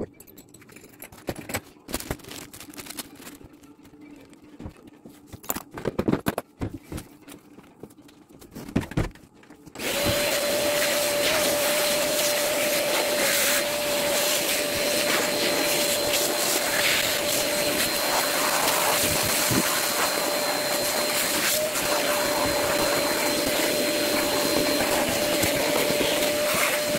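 A few scattered knocks and handling noises, then about ten seconds in a vacuum cleaner switches on and runs steadily with a constant whine.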